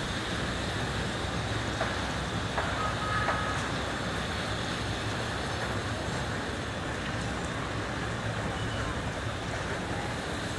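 Airbus A400M's four TP400 turboprop engines droning steadily as the aircraft flies past, heard as an even rushing noise.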